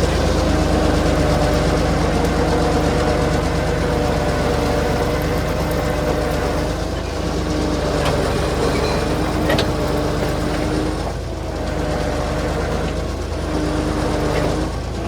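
Vehicle engine running steadily, a constant low hum with a few faint clicks in the middle.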